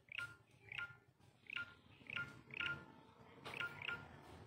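Short electronic chirp-beeps repeat irregularly, about twice a second, some in quick pairs. Each is a quick upward blip that settles on a steady tone.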